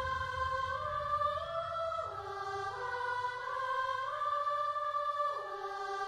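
Slow choral music: voices hold long chords that move step by step from note to note. The low accompaniment drops out about two seconds in.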